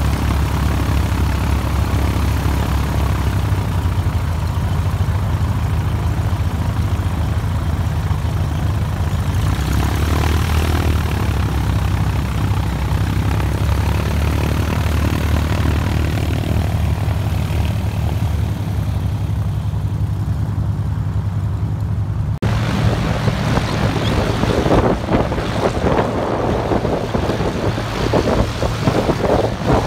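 Cessna 150's four-cylinder Continental O-200 engine and propeller running steadily at low power as the plane taxis close by. About two thirds of the way in the sound changes abruptly: the engine is more distant, under gusty wind on the microphone.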